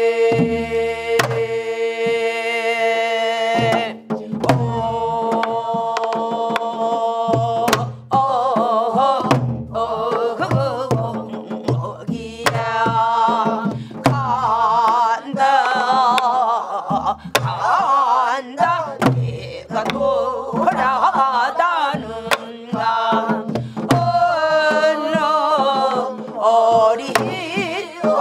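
Korean Namdo folk song (namdo minyo) sung by a woman in a full, shaking voice with wide vibrato, opening on a long held note. Low buk barrel-drum strokes and janggu hourglass-drum strokes keep the rhythm underneath.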